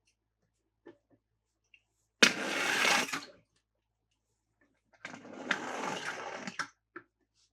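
Small toy motor whirring in two short bursts, the first starting sharply about two seconds in and the second a little longer, with light plastic clicks between them.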